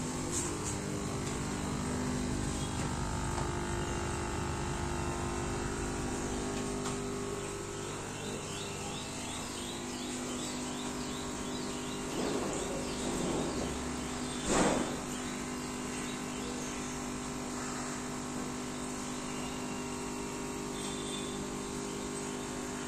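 Bolaar 1390 laser cutting and engraving machine running: a steady hum with runs of quick, high chirps as its laser head is driven across the bed, and a short louder noise about halfway through.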